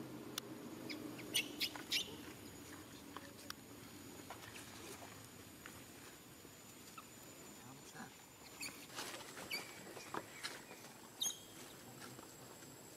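Monkey giving short high-pitched squeaks and chirps in scattered clusters, with a few light clicks and pattering sounds between them.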